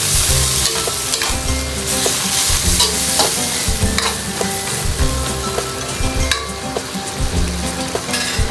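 Pork intestine sizzling as it is stir-fried in a pan, with the repeated, irregular clicks and scrapes of a cooking utensil stirring it against the pan.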